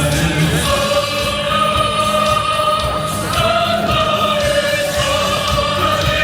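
Choir singing slow, long-held notes, the pitch stepping up a little about three seconds in.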